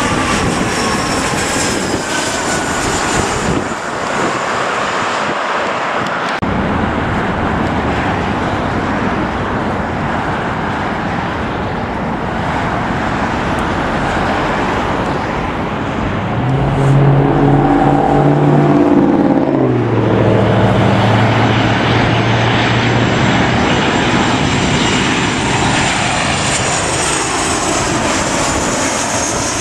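Jet airliners, among them a Boeing 737, passing low overhead on landing approach: a continuous engine rush, with engine tones falling in pitch as each one goes by. The loudest pass comes about two-thirds of the way through, its low engine hum dropping in pitch as it goes over.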